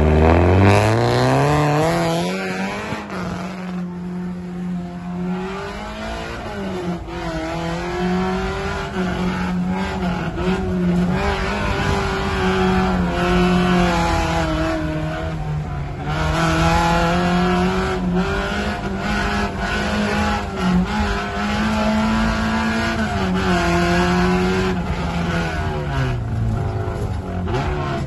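Off-road vehicle's engine revving up hard from low to high revs over the first two seconds, then held at high revs, wavering up and down with a few brief dips.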